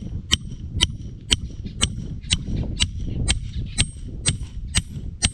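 A hammer striking the head of a large steel bolt, driving it into the ground: a steady run of about eleven blows, two a second, each with a short metallic ring.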